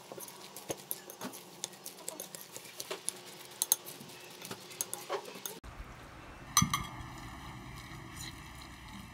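Metal spoon clinking and scraping against a glass mixing bowl as it stirs a wet shredded-cabbage and crab-meat stuffing, in quick irregular clicks. After a cut a little over halfway through comes one loud knock, then a steady low noise.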